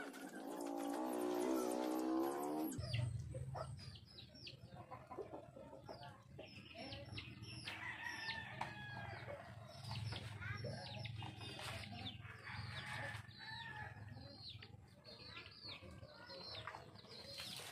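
A rooster crows once, one long call in the first few seconds. After that, chickens cluck and chirp in short, sharp calls, over a low steady hum that starts suddenly about three seconds in.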